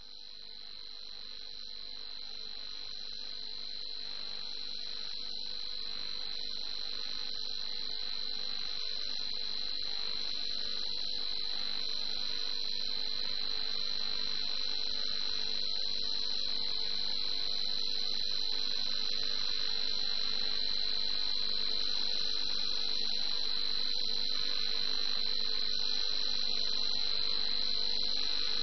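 Airband radio receiver hissing between transmissions, with a steady high-pitched whine over the static, slowly growing louder.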